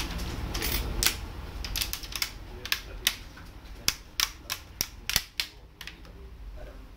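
Plastic front bezel of an Asus 14-inch laptop screen being pressed onto the lid, its clips snapping into place in an irregular string of a dozen or so sharp clicks.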